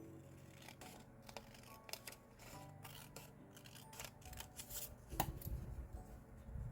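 Scissors snipping paper in a quick run of crisp cuts, over soft piano background music, with a low rumble joining about two-thirds of the way in.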